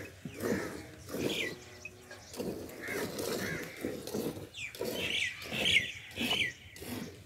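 Hand-milking of a cow: jets of milk squirting into a part-filled metal pail in a steady rhythm of about two squirts a second. Birds chirp briefly in the second half.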